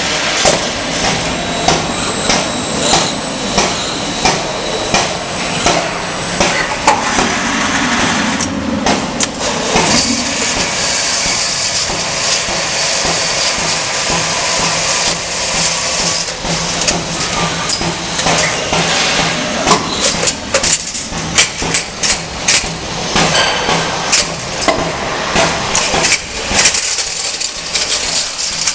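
Automatic steel-strapping machine working on a packing line: repeated metal clanks and knocks over steady machinery noise, with a stretch of air hiss in the middle. The knocks come thicker and sharper towards the end.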